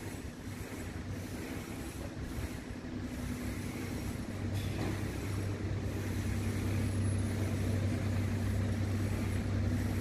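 A vehicle's engine drone, a steady low hum that grows louder over the second half.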